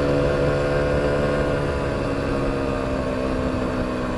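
Aprilia SX125's 125 cc single-cylinder four-stroke engine running at fairly steady revs while riding, its pitch sinking slightly as the throttle eases.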